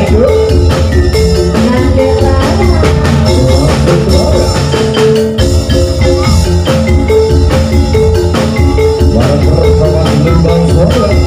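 Oklik ensemble playing an instrumental passage in a campursari style: tuned bamboo kentongan (slit drums) ringing out a melody over a steady drum beat.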